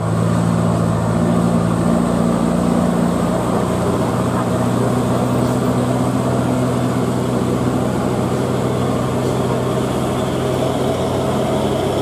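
Mitsubishi Fuso truck's diesel engine running steadily under load as it climbs slowly up a steep grade, with a low, even hum that holds at the same pitch.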